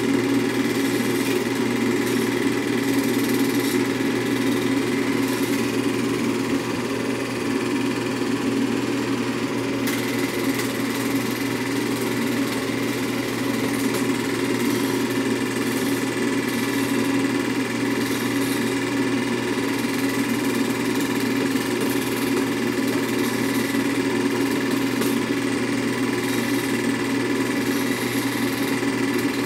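Film projector running steadily, a constant mechanical whirr of the film transport.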